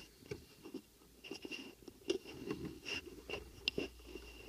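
Faint scratchy rubbing and scattered small clicks of handling noise on a rifle-mounted scope camera, over a thin steady high whine.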